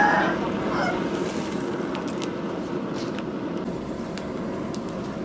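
Steady rushing of air blown into a charcoal forge fire, with the coals crackling and popping as sparks fly. A domestic fowl calls briefly in the first second.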